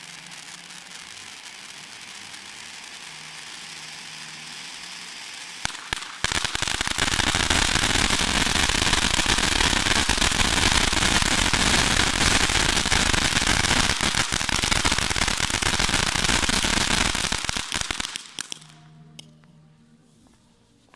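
Cone fountain firework burning: a steady hiss of sparks, then about six seconds in it suddenly bursts into a loud, dense crackle that runs until around eighteen seconds, before dying away with a few last pops.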